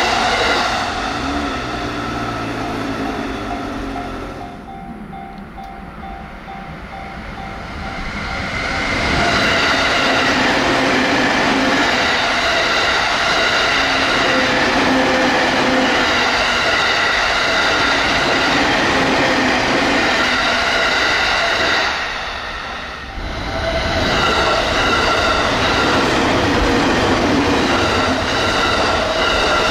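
E231/E233-series electric commuter trains passing at speed, about 80–95 km/h, one after another: a continuous loud rush of wheels on rail with steady whining tones. The noise drops between trains, about five seconds in and again after about twenty-two seconds.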